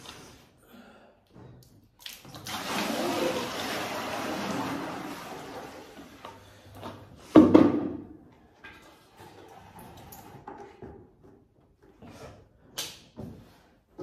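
Water splashing and sloshing in a plastic bucket for about four seconds, then a single loud thump about halfway through, followed by a few light knocks and clicks from handling the buckets.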